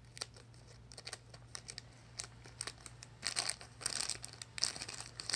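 A plastic blind bag crinkling and being torn open by hand, in scattered crackles that get busier about three seconds in, over a low steady hum.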